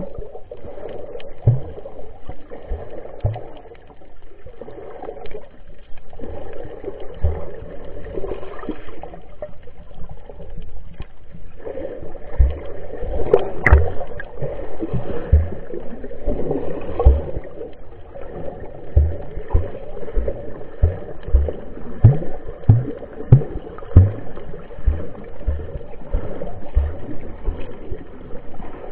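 Muffled water noise picked up by a camera held underwater, with short low thumps that often come about once a second.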